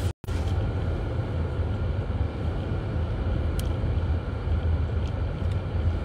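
Steady low rumble of a car driving on a snow-covered road, heard from inside the cabin: engine and tyre noise. The sound cuts out for a moment just after the start.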